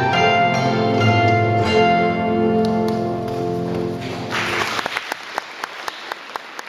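A kokle ensemble (Latvian plucked box zithers) sounds its closing notes, which ring on and die away; about four seconds in, audience applause breaks out.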